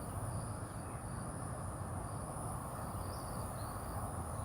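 Steady outdoor background noise with a continuous high-pitched insect trill, typical of crickets, and a few faint chirps.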